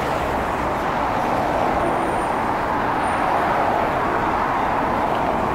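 Steady city street noise from a busy downtown intersection: a constant wash of traffic, with no single vehicle or event standing out.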